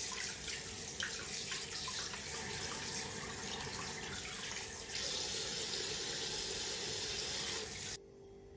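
Kitchen tap running into a glass bowl in a stainless steel sink as sardines are rinsed under the stream, with small splashes; a little louder about five seconds in, and it stops abruptly near the end.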